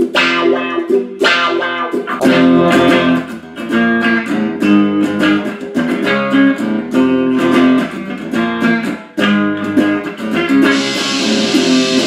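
Electric guitar played through a small Fender combo amp: a quick run of picked notes and chords.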